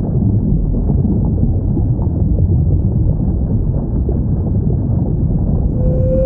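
Underwater whale sounds: a steady low rumble of water noise, with a long whale call held at one pitch starting just before the end.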